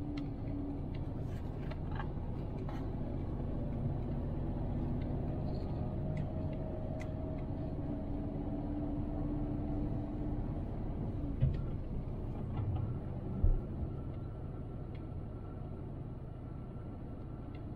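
A car driving slowly on a city street, heard from inside the cabin: a steady low rumble of engine and tyres, with an engine drone for a few seconds in the middle. Two short low thumps follow in the second half.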